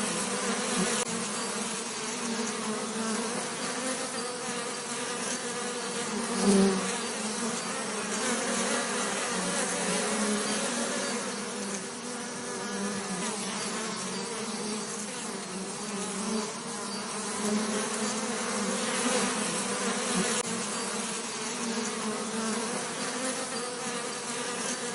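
Bees buzzing in a continuous, steady drone, with one brief louder swell about six seconds in as a bee comes close.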